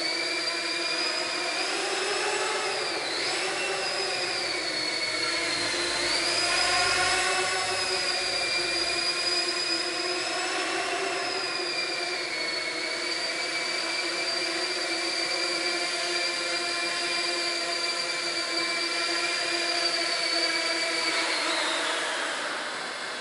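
Small quadcopter drone's motors and propellers whining in flight, the pitch wavering up and down as the throttle changes. Near the end the whine drops in pitch and stops as the drone lands.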